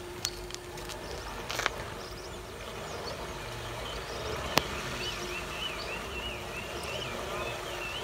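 Steady faint outdoor background with a low hum, a single sharp click about halfway through, then a bird calling in a rapid run of short up-and-down chirps.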